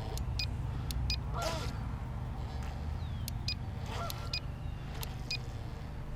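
Geese honking twice, at about a second and a half in and again around four seconds, over a steady low rumble, with a few short high clicks between.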